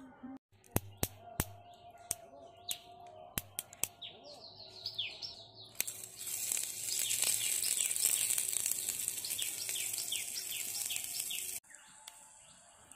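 Green chilies sizzling in hot oil in a tiny metal pan over a wood fire: a loud hiss starts about six seconds in and cuts off suddenly near the end. Before it come a few sharp clicks, and birds chirp throughout.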